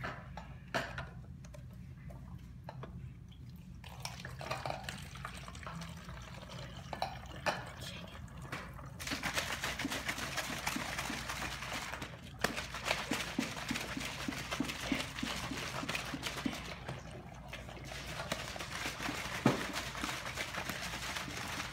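Root beer mix poured from a plastic gallon jug through a funnel into a plastic bottle, a steady splashing pour that starts about nine seconds in, with a run of quick regular gurgles partway through.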